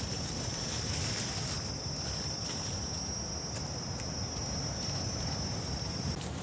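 Insect calling: a steady, high-pitched buzzing trill that cuts off suddenly near the end.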